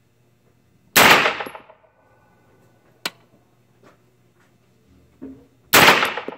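Two single shots from a PSA 9mm AR pistol, about five seconds apart, each ringing briefly in the enclosed indoor range. A sharp, shorter click sounds between them.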